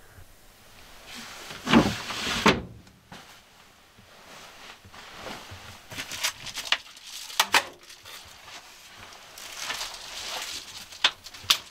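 Two loud knocks about two seconds in, then soft rustling of bedding with scattered bumps and clicks as a person crawls onto a bed.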